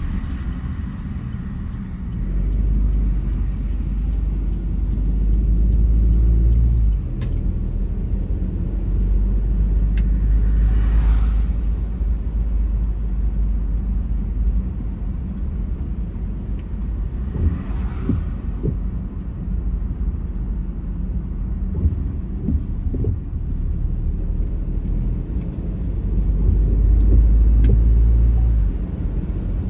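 Car on the move: a steady low road-and-engine rumble that swells twice, with two brief swishes about a third and two thirds of the way through.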